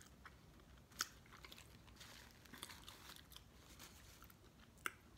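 Faint close-up chewing of a mouthful of chili cheese coney dog: soft, wet mouth noises with a small click about a second in and another near the end.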